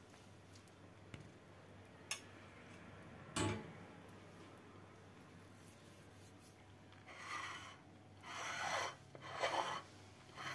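Faint handling noises: a sharp click about two seconds in and a knock a little later, then three short rubbing scrapes near the end as a hand reaches to the plate on the stone counter.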